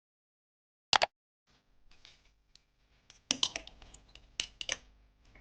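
A sharp click about a second in, then faint rustling and a run of several sharp clicks and clacks in the second half: small hard objects being handled.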